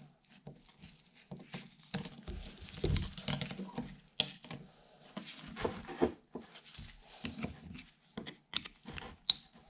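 Screwdriver tips scraping and clicking against the C-clip and the housing of a John Deere mower deck spindle as the clip is pried out: irregular small metal clicks and scrapes, with a few sharper clicks near the end.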